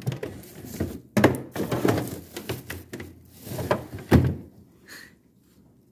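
Plastic freezer drawer being handled, sliding and knocking, with a series of thunks; the loudest come about a second in and about four seconds in.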